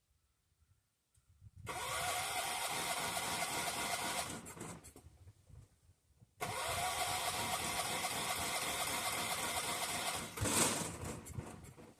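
1976 John Deere 300 riding mower's engine being cranked on a cold start, two long cranking attempts of about three and four seconds that do not catch, with a brief louder burst near the end. The hard start is one the owner takes for the engine flooding itself in the cold.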